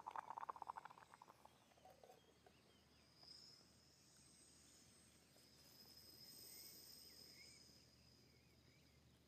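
Faint, steady high-pitched chirring of insects in the grass. A rapid pulsing sound fades out in the first second or so.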